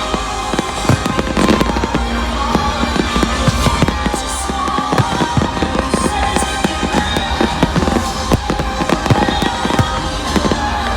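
Fireworks display: a dense, continuous run of bangs and crackling bursts, with music playing underneath.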